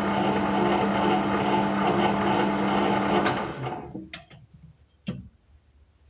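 Small metal lathe running steadily with a plastic workpiece spinning in its chuck, a constant motor and gear whine. A little over three seconds in there is a click, and the lathe spins down and stops within about a second, followed by two sharp clicks.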